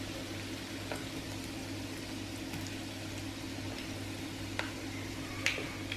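Oil sizzling steadily as instant-porridge fritters deep-fry in a wok, with a few light clicks of the chopsticks and wire skimmer, the loudest a ringing metal clink near the end.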